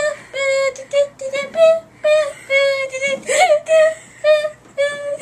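A girl singing in a high, squeaky voice: a string of short held notes on nearly one pitch, with a brief squeal about three seconds in.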